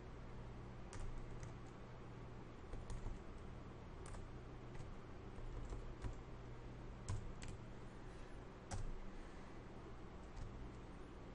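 Faint computer keyboard keystrokes, a dozen or so at an irregular, unhurried pace, as a bearing value is typed into a dialog box, over a steady low hum.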